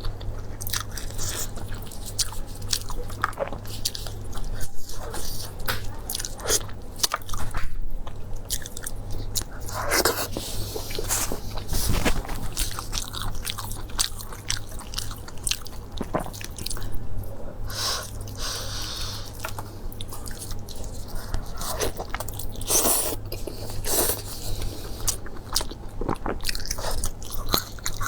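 A person eating: steady chewing with frequent crisp crunches and bites, over a low steady hum.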